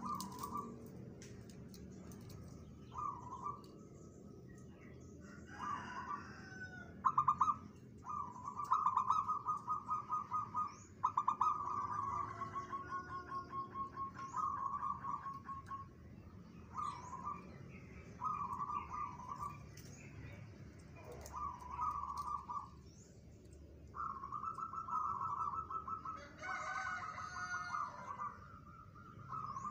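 Zebra dove (perkutut) cooing: phrases of quick staccato coo notes repeated every second or two, some running on into a longer rolling trill.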